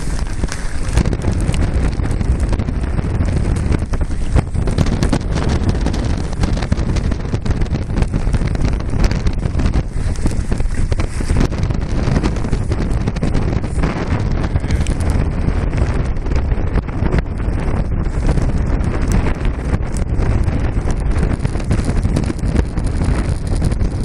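Strong wind buffeting the microphone: a loud, uneven low rumble that gusts throughout.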